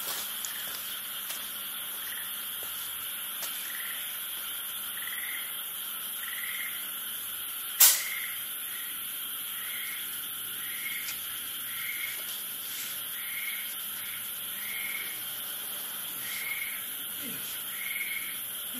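Short, high chirping animal calls repeating about once a second over a steady high hiss, with one sharp click about eight seconds in.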